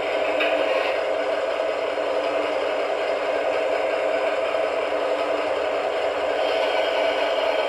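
Model locomotive's sound decoder (ESU LokSound XL V4.0 running the DR V 100 diesel sound project) playing a diesel engine running steadily at idle through the loco's small speaker.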